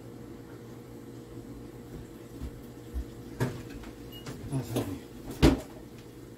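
A few scattered knocks and clacks of kitchen things being handled, the loudest near the end, over a steady low hum.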